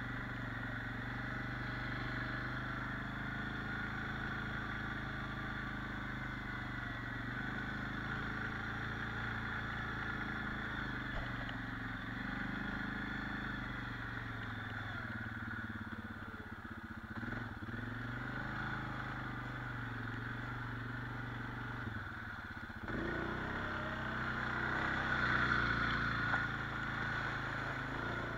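A 4x4 quad's (ATV's) engine running as it drives at low speed, a steady hum with small changes in revs. About three-quarters of the way through it revs up and grows louder for a few seconds, then settles again.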